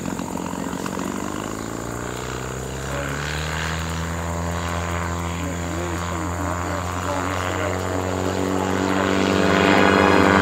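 Bensen gyrocopter's McCulloch two-stroke flat-four engine, fitted with custom mufflers, driving its pusher propeller in flight. The engine note rises in pitch over the first few seconds, then holds steady, getting louder toward the end.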